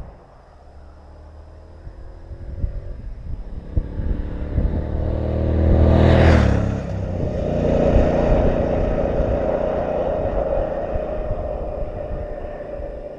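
Triumph Bonneville T120's parallel-twin engine through Vance & Hines silencers, riding up and passing close by. It grows louder to a peak about six seconds in, its pitch drops as it goes past, and the exhaust note then slowly fades.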